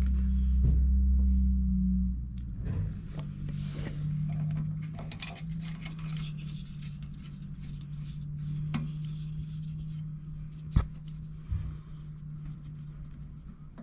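Screwdriver tip clicking and scraping against the metal teeth of a grinder's clump crusher while they are pushed forward, with scattered light clicks and one sharp click near the end. A steady low hum runs underneath, loudest in the first two seconds.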